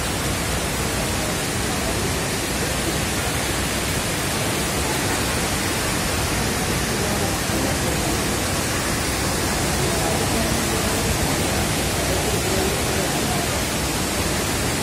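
Heavy rain pouring in a storm with strong wind, a steady, loud rush of noise.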